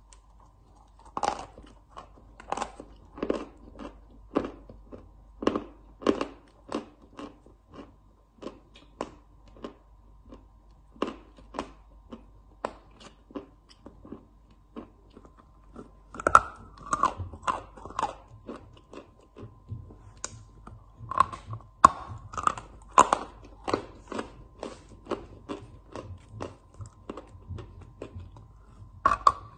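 A lump of white chalk being bitten and chewed: a run of short, dry crunches, about one or two a second, with louder bunches of bites about halfway through and again a little later.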